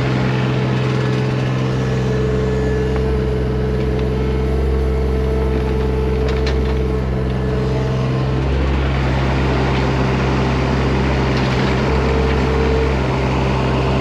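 Bobcat E20 mini excavator's diesel engine running steadily as it digs, with a higher whine that comes and goes as the hydraulics work.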